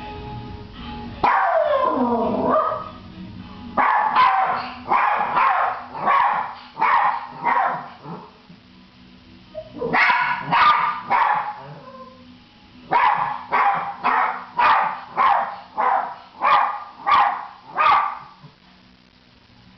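Maltese dog barking in three bouts of rapid, sharp barks, opening about a second in with a long falling whine; a dog left home alone, barking in distress at its owner's absence.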